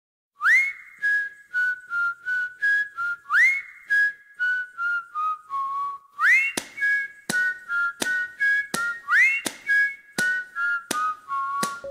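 Background music: a cheerful whistled tune, each phrase opening with a quick rising slide. Sharp percussive clicks join in on the beat about six seconds in.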